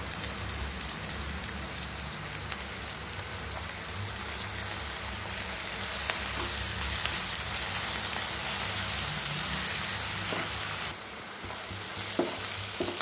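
Chopped onions, green chillies, curry leaves and ginger-garlic paste sizzling in hot oil in a nonstick kadai, with a steel spatula stirring and scraping now and then. The sizzle gets a little louder about six seconds in and drops briefly near eleven seconds.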